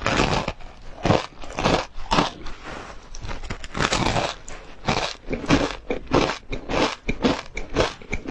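Crunching bites and chewing into a frozen ice cream coated in black sesame seeds, a quick uneven run of crisp crackling crunches, several a second.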